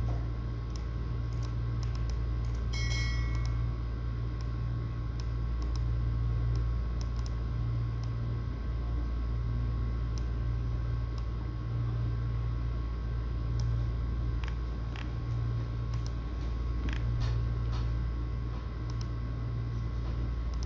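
Steady low electrical hum, with scattered light clicks and a short beep about three seconds in.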